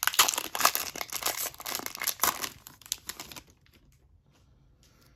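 Foil wrapper of an Upper Deck hockey card pack being torn open and crinkled by hand, a rapid dense crackle that stops about three and a half seconds in.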